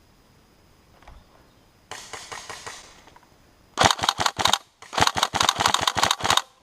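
Airsoft guns firing: a fainter quick run of shots about two seconds in, then much louder shots in fast bursts of several each from about four seconds in.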